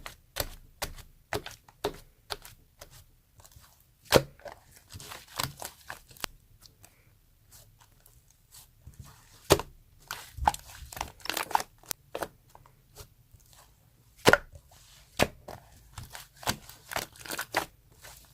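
Fluffy slime being squished and poked by hand: irregular sharp clicks and pops, with stretches of fine crackling as it is pressed and folded.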